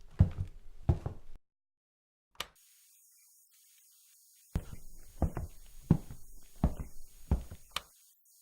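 A steady beat of deep knocking thuds, about one every 0.7 seconds. It breaks off for about three seconds, with a lone click and faint hiss in the gap, then resumes, with a sharp click near the end.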